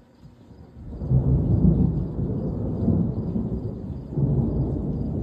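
Thunder: a low rumble that swells sharply about a second in and keeps rolling in waves.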